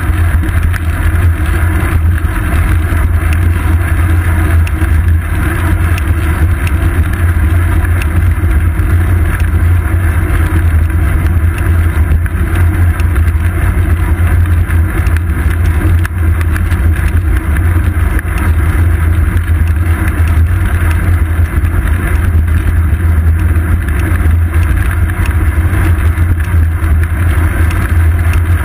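Steady low rumble of wind buffeting and road vibration picked up by a seat-post-mounted GoPro Hero 2 on a moving bicycle.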